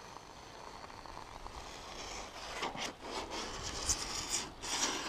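Foam gun dispensing Tytan gun-grade PUR expanding foam into a seam between XPS insulation boards: an uneven hiss with small crackles, growing louder in the last couple of seconds.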